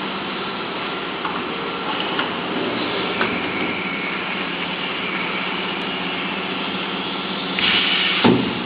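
Steady hum and hiss of a spiral fan guard welding machine running while a wire guard is fitted onto it. Near the end there is a brief louder hiss, then a sharp knock.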